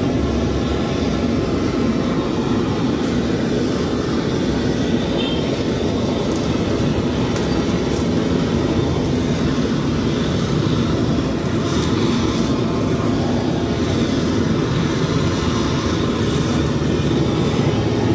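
Hose-fed gas blowtorch burning steadily as its flame singes the skin of a plucked chicken, with a few faint ticks now and then.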